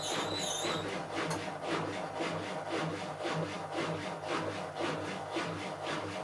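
Bauknecht WA Plus 844 washing machine drum turning with a rhythmic grinding rasp, about three strokes a second over a pulsing hum: the sign of a failed drum bearing.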